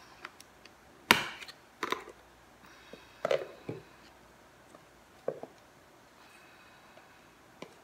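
About six sharp, separate knocks and clinks spread unevenly, the loudest about a second in and one with a short ring a little past three seconds: a teaspoon and spice container handled while paprika is measured out.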